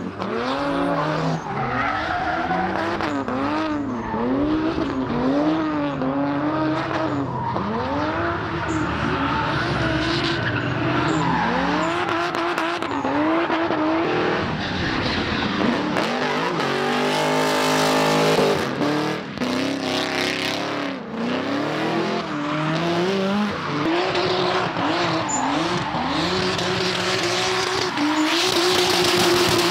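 Drift cars' engines revving hard, the pitch swinging up and down about once a second as the throttle is worked mid-slide, over tyre squeal. The engine sound grows loudest and densest about two-thirds of the way through.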